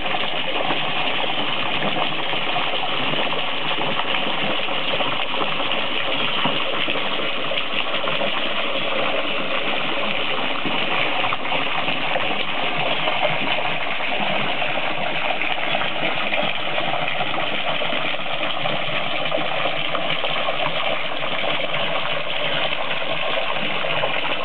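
Jet of water from a garden hose splashing steadily into shallow water on a pond liner as the pond is refilled.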